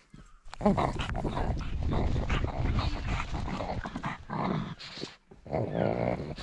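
A pug breathing hard and grunting as she runs, heard very close up from a GoPro mounted on her harness. The sound starts about half a second in, after a quiet moment, and carries on with a brief pause near the end.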